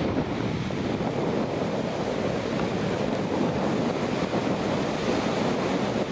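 Steady wind rushing over the microphone, mixed with the wash of breaking surf.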